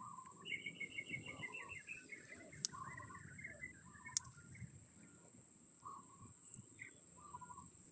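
Birds chirping, with a run of quick descending notes in the first few seconds and scattered calls after, over a steady high-pitched insect drone. Faint rustling of leafy plant stems being handled and picked underneath, with a couple of sharp ticks.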